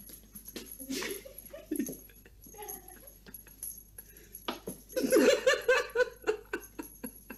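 A person laughing in a quick run of repeated bursts about five seconds in, the loudest sound here. Before it come faint light taps and scrabbles of a kitten playing on a hard floor.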